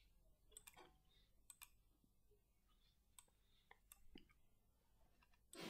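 Near silence with a few faint, scattered clicks of a computer mouse, and one slightly louder short noise near the end.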